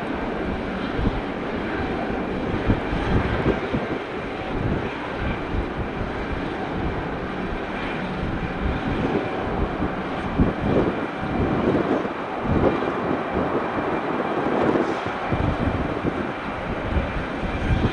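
Jet airliner engines running: a steady rushing noise with a faint high whine, and gusts of wind buffeting the microphone.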